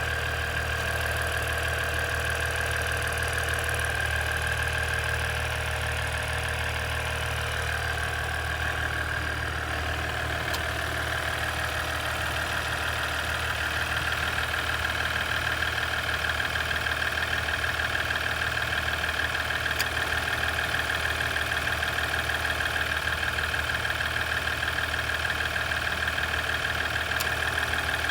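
2017 Ram EcoDiesel 3.0-litre V6 turbodiesel idling steadily with a fast, regular clicking from the engine.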